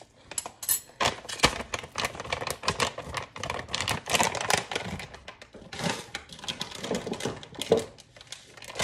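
Rapid, irregular crinkling and clicking of a plastic bag of chia seeds being handled as the seeds are spooned out.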